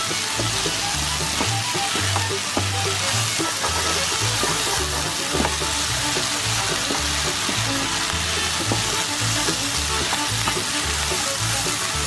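Corn kernels sizzling as they fry in butter in a pan, stirred and scraped by a wooden spatula, with scattered light ticks and rattles as the kernels are pushed around.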